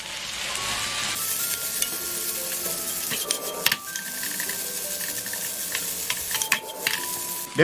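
Shrimp egg fried rice sizzling in a hot oiled frying pan while a wooden spatula stirs and tosses it. The frying hiss grows louder about a second in, with a few clicks of the spatula against the pan.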